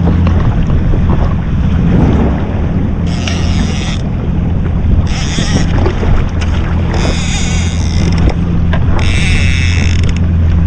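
Yamaha SHO jet ski engine running with a steady low hum, with wind hissing across the microphone in gusts every couple of seconds.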